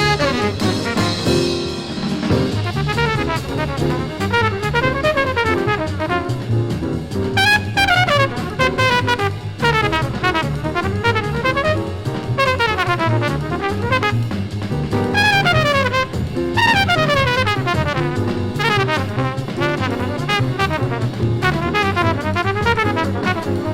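Hard-bop jazz quintet recording played from a vinyl LP: a fast, winding trumpet line over drums, piano and bass.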